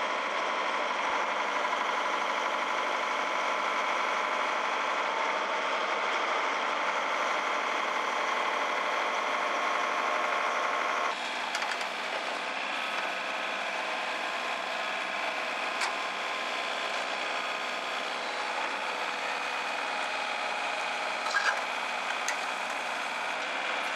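Diesel engine of a Volvo EC210B excavator running steadily, its sound changing abruptly about halfway through, with a few faint clicks near the end.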